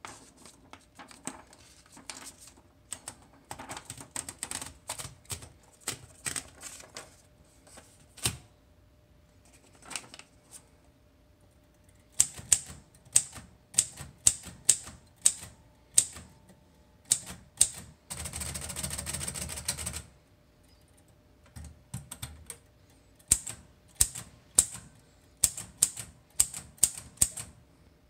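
Pink Royal typewriter being typed on: irregular key strikes, soft at first and then louder and sharper, with a dense rattle lasting about two seconds past the middle.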